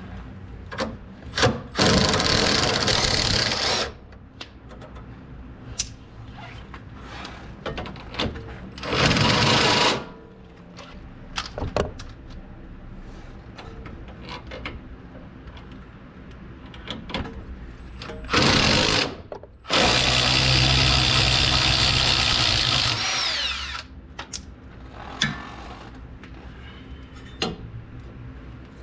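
A power tool run in several bursts, the longest about three seconds near the end, while the nuts come off the sway bar end links. The last burst winds down with a falling tone, and small metal clinks of tools fall between the bursts.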